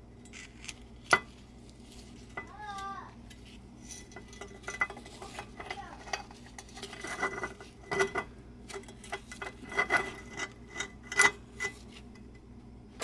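Small steel parts clinking and tapping as outboard lower-unit gears and bearings are handled and fitted into the gear case: irregular clicks, a sharp one about a second in and a busier run of clinks in the second half.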